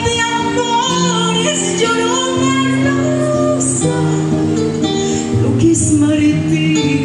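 A woman singing a slow melody live into a handheld microphone, holding long notes, over a guitar accompaniment.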